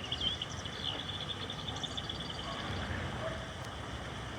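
Songbirds calling, with a rapid, even trill that runs from about a second in to near the end, over a steady low background rush.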